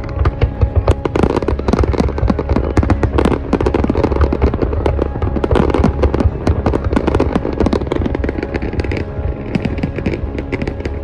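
Fireworks going off in a dense, continuous run of sharp bangs and crackles, many per second.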